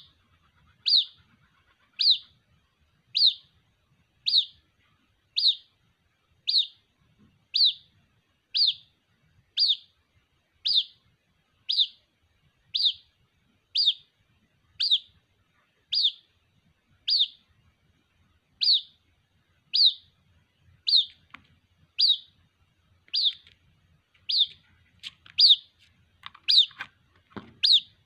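White-breasted waterhen chick calling for its parent: a single short, high, sharp peep repeated steadily about once a second. A few faint knocks come in near the end.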